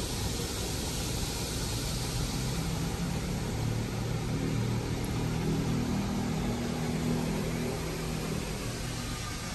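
Water spraying over a car in an automatic car wash, heard from inside the closed cabin of a car fitted with sound deadening as a steady hiss. A low hum swells in the middle and fades near the end.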